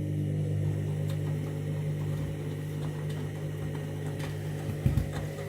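Candy washing machine's motor turning the drum during the main wash: a steady hum with faint ticks, and one low thump about five seconds in.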